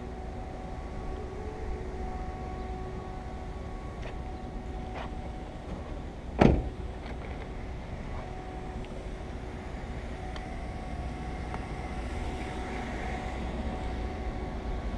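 A steady low hum with a few light clicks, and one sharp knock about six and a half seconds in.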